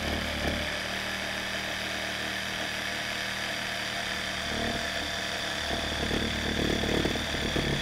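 Proxxon Super Jigsaw, a small electric crafter's jigsaw, running steadily as its blade saws through a dried gourd shell. A rapid chatter of the blade in the shell joins in about halfway through, a little louder near the end.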